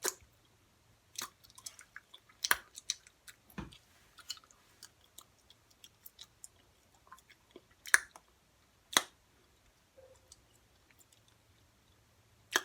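Open-mouthed chewing: irregular wet smacks and clicks, a few louder ones about two and a half, eight and nine seconds in.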